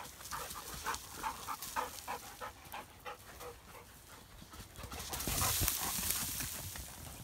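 Dog panting in quick, regular breaths, about three a second, close by. About five seconds in, a louder rushing hiss rises and fades over a second or two.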